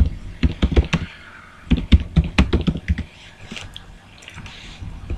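Typing on a computer keyboard: a quick run of keystrokes over the first three seconds, then a few scattered, quieter ones.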